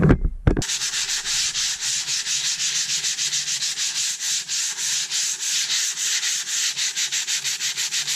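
Sandpaper rubbed by hand over a urethane-coated wooden countertop in quick, even back-and-forth strokes: a light scuff-sanding between coats of finish. A couple of low knocks come just before the sanding starts.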